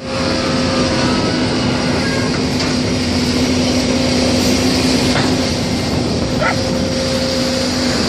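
Krupp excavator's diesel engine running steadily with an even low hum, and a couple of brief higher calls over it about five and six and a half seconds in.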